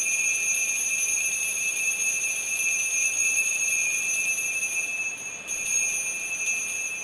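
Consecration bell ringing continuously at a Mass while the host is elevated, marking the consecration. The ringing is steady and high-pitched, dips briefly about five and a half seconds in, and fades near the end as the host is lowered.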